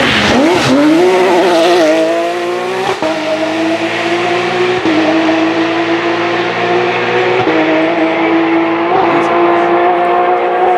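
Porsche 997 GT3 rally car's 3.6-litre flat-six engine at high revs, loud. Its pitch wavers at first as the car slides through a corner, then climbs and holds high, broken by a few brief dips.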